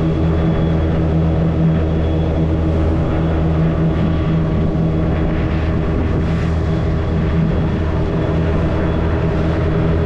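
The wooden boat's engine running at a steady cruising drone, a low hum with even overtones that doesn't change, over a steady hiss.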